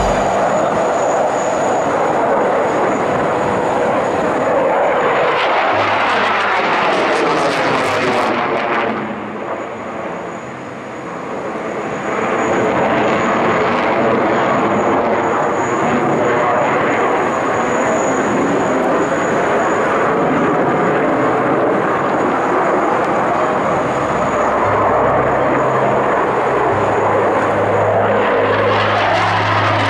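Twin jet engines of a Dassault Rafale fighter, two Snecma M88 turbofans, running loud through a display flight, with a sweeping rush as the jet passes. The sound drops for a couple of seconds about ten seconds in, then comes back up.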